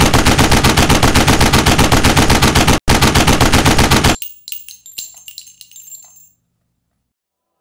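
Machine-gun fire sound effect: a rapid burst of shots, about ten a second, with one very short break a little before three seconds. It stops abruptly about four seconds in, and scattered metallic clinks and rings follow, dying away by about six seconds.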